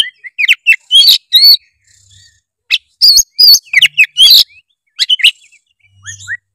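Oriental magpie-robin singing loud, open 'gacor' song: fast phrases of sharp whistles, rising and falling notes and chattering notes. There are brief pauses about two seconds in and again near the end.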